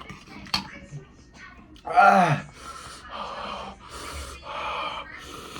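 A man groans once, a short vocal sound falling in pitch, then breathes hard in and out several times, hissing air against the burn of extremely spicy noodles.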